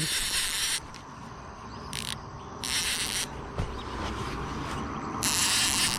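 Fishing reel drag buzzing in short, irregular bursts as a hooked fish pulls line: four runs, the longest under a second.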